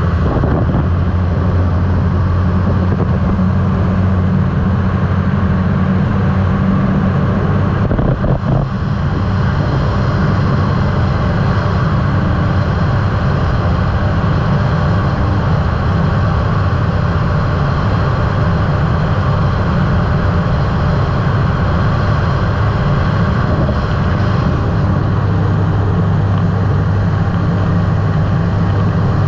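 Microlight trike's engine and pusher propeller droning steadily in cruise flight, with a brief waver about eight seconds in.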